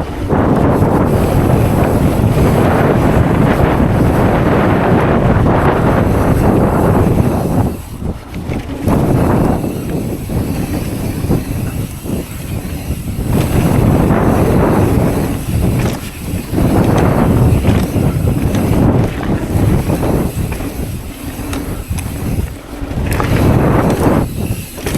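Wind buffeting a chest-mounted camera's microphone during a mountain bike ride. It comes in loud surges lasting several seconds, with a few brief lulls between them.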